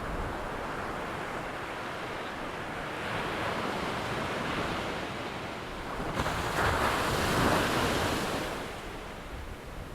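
Ocean surf: waves washing in with a steady rush, one breaking wave surging loudest about six seconds in and dying away near the end.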